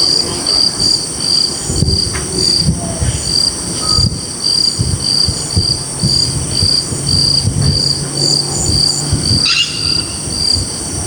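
Crickets chirping in an even pulse, about three chirps a second, over a steady high insect trill, with a low rumble underneath and a brief wavering call near the end.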